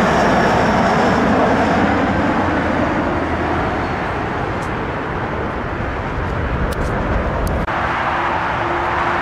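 Jet aircraft's engines roaring past, loud and even with a faint high whine at first, easing a little. Near the end the roar breaks off abruptly into a quieter, steadier low hum.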